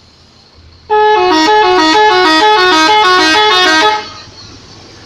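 Indonesian bus 'telolet' multi-tone air horn playing a loud, quick melody of stepping notes for about three seconds, starting about a second in and cutting off suddenly.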